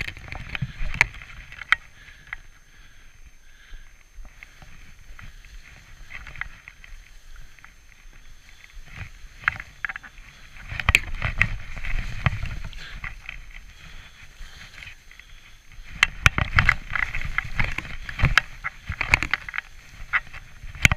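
Skis swishing through deep, soft snow in a run of turns, with a low rumble of wind on the microphone and many sharp clicks and knocks. It grows louder in two stretches, about ten seconds in and again about sixteen seconds in.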